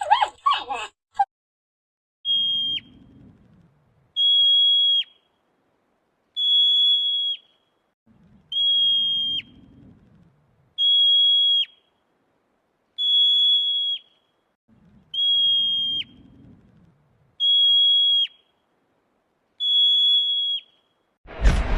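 A high, steady whistle repeated nine times, about every two seconds, each note held just under a second and dropping sharply at its end.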